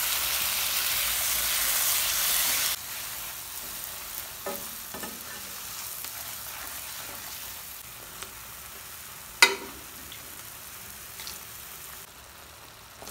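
Tomato-onion masala sizzling in hot oil in a pan as boiled kidney beans are tipped in and stirred with a wooden spatula. The sizzle is loud at first and drops to a quieter, steady sizzle about three seconds in. The spatula scrapes and knocks against the pan a few times, with one sharp knock near ten seconds in.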